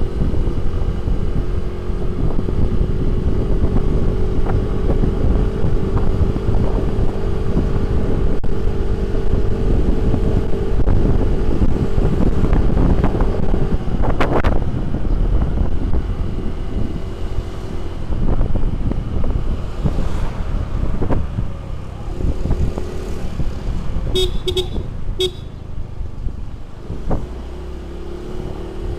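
Motor scooter's engine running at a steady cruise, with wind rumbling on the microphone. The engine hum fades out about halfway through and returns near the end. A vehicle horn gives three short beeps.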